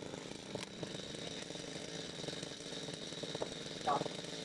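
Chainsaw running steadily at a low level, with a brief higher sound about four seconds in.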